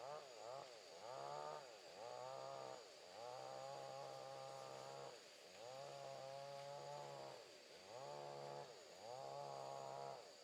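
Chainsaw running at a distance, faint, its engine note rising and falling in pulses of one to two seconds as it is throttled through a cut.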